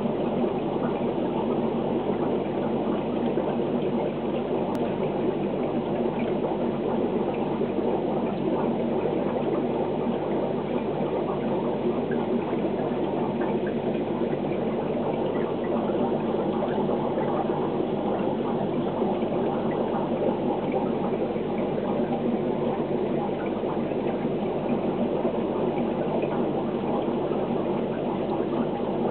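Aquarium water equipment running steadily: a low motor hum under a constant bubbling, churning of water.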